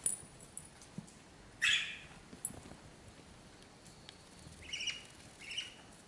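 Budgerigar chick chirping in short calls, the loudest about one and a half seconds in and two more near the end, with a few light clicks in between.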